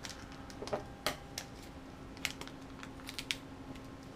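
Scattered light clicks and taps of small drone parts being handled during an installation, at irregular intervals, over a faint steady hum.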